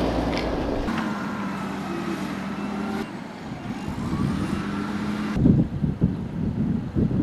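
Motor vehicle engines running in a snowy street: a steady hum whose pitch dips and rises again, and irregular knocks and bumps near the end, with the sound changing abruptly a few times.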